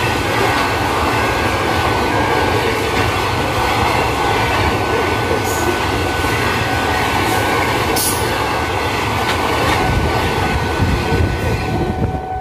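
Open-top steel freight wagons rolling past at speed: a loud steady noise of wheels on rail, with a thin steady high-pitched tone and a few sharp clanks. It eases off slightly near the end as the last wagon goes by.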